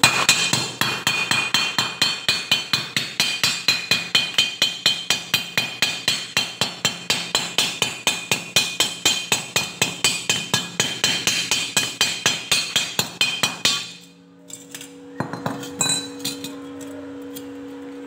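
A hammer chipping slag off a freshly stick-welded bead on a steel angle bar: rapid ringing metal-on-metal blows, about four a second, that stop about fourteen seconds in. A couple of lighter knocks and a steady low hum follow.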